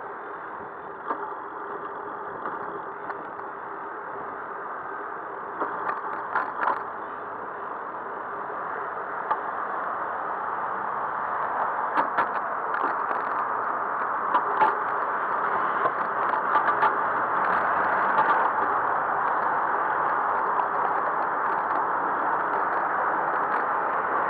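Road traffic noise heard from a moving bicycle, growing steadily louder through the second half, with scattered rattling clicks.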